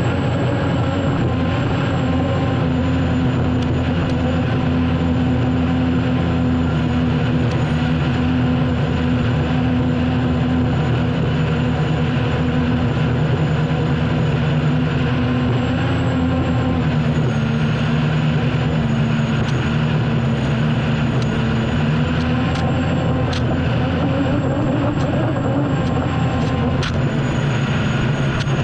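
Turbine engine of an unlimited hydroplane running hard, heard onboard: a steady loud drone with a high whine that dips slightly in pitch about halfway through, and a few sharp ticks in the second half.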